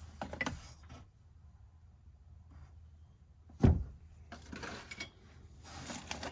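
Handling noises from cardboard light-bulb packages being picked up and shuffled, with crinkly rustling, and one dull thump about three and a half seconds in.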